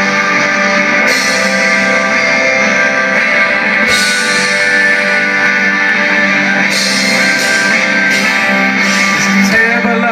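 Live rock band playing an instrumental passage led by electric guitars, amplified through a large outdoor PA and heard from far back in the crowd.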